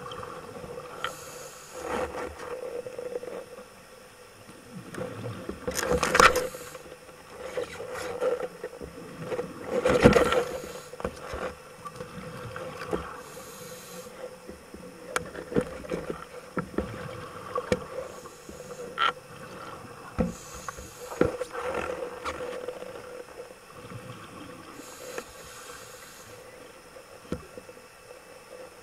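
Underwater sound picked up by a diver's camera: a steady low hum with scattered clicks and knocks, and two louder rushing bursts about six and ten seconds in.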